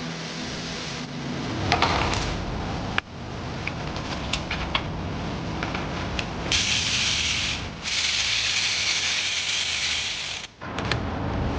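Workshop sounds from the engine's reassembly: scattered sharp metal clicks and ticks, then two long steady hisses, the first beginning about six and a half seconds in and the second running on until it cuts off abruptly near the end.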